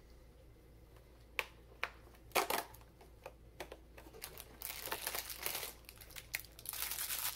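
Cardboard of a Lego advent calendar box snapping as its perforated door is pushed and pulled open, a few sharp cracks with the loudest about two and a half seconds in. Then, from about four and a half seconds in, the crinkling of a small plastic parts bag being handled.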